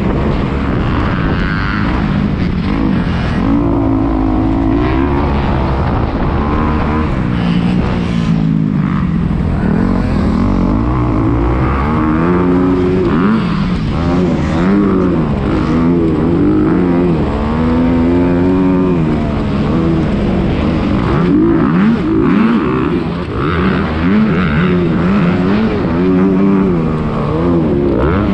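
Motocross dirt bike engine revving hard, its pitch rising and falling again and again as the throttle opens and closes, heard on board through a GoPro.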